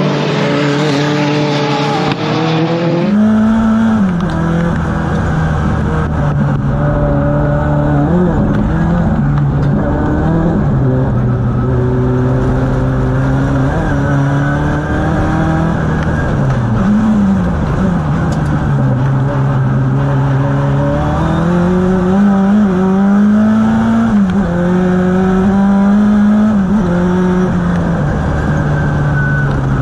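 Rallycross cars running on the track for the first three seconds. Then the onboard sound of the Renault 5 Turbo's turbocharged four-cylinder engine, heard from inside the cabin with little treble, its pitch repeatedly rising under acceleration and falling as it backs off.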